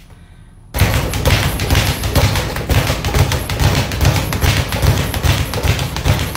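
A leather speed bag being punched in a fast, steady rattle of rebounds against its wooden-and-metal rebound board, starting about a second in. The bag is worn, with its bladder about to bust out the bottom.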